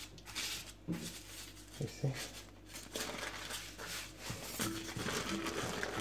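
Parchment paper rustling and crinkling as a sheet of puff pastry is unrolled and peeled off it by hand.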